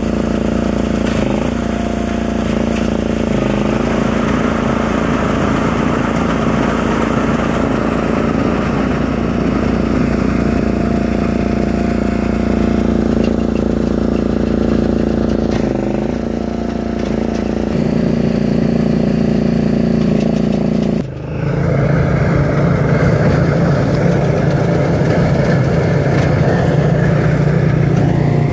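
Engine of a Christmas tree baler running steadily while trees are fed through to be wrapped in twine. About twenty seconds in, the sound dips for a moment and comes back at a lower pitch.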